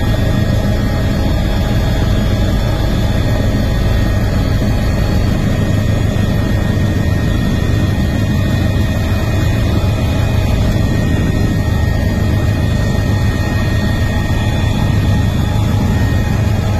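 Steady aircraft engine drone heard from inside the cabin, loud and low, without a break.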